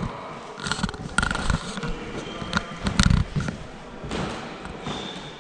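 Irregular soft thumps and knocks of footsteps and a handheld camera being carried across a hard floor, over faint room hiss.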